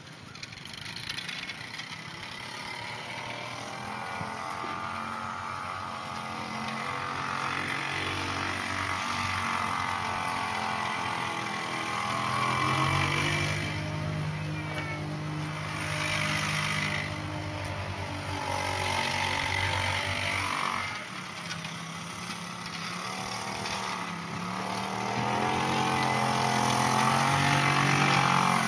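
Small three-wheeler ATV engine running and revving up and down as it tows a sled through snow, its pitch rising and falling and getting louder as it passes close near the end.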